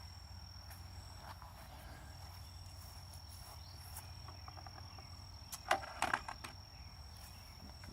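A steady high-pitched insect trill, with a quick cluster of sharp clicks and knocks about six seconds in as parts are handled.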